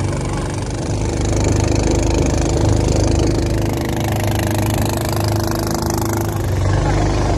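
A motor boat's engine running steadily while the boat is under way, with water rushing along the hull.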